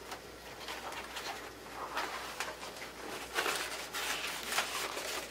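Sheets of paper rustling in irregular swishes as a document is leafed through, thickest about three seconds in.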